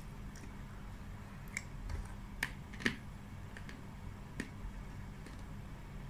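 Metal spoon clicking and scraping against a clear plastic cup as ice cream is scooped and eaten: a scattering of short, sharp clicks, the two loudest about halfway through.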